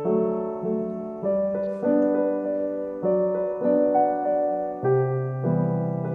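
Gentle background piano music, one note or chord after another at an unhurried pace.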